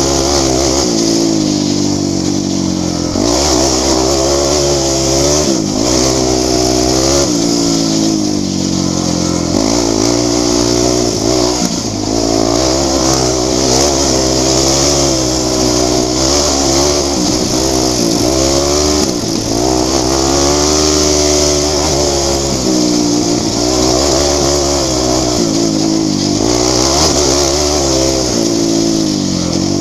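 Sport quad (ATV) engine running hard on a dirt road, its pitch rising and dropping repeatedly as the rider accelerates, shifts and backs off for bends, with a steady hiss over the top.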